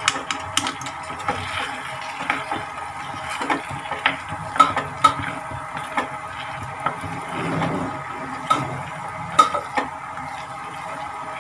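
Spatula stirring cauliflower in thick gravy in a metal kadai, scraping the pan with irregular clinks and taps against its sides.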